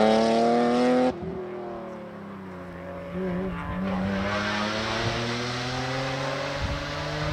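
BMW Z3 M Coupé rally car's straight-six engine accelerating hard, its pitch rising. About a second in the sound suddenly drops to a more distant pass, where the engine dips briefly about three seconds in and then climbs again, with a hiss of tyres on the road.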